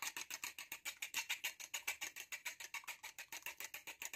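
An egg being beaten by hand in a ceramic bowl: a quick, even clicking of the utensil against the bowl, about eight strokes a second, which stops at the very end.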